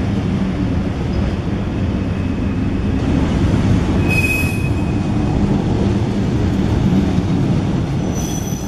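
Loaded gondola cars of a freight pipe train rolling past with a steady low rumble of wheels on rail. A brief high-pitched wheel squeal comes about four seconds in, and another near the end.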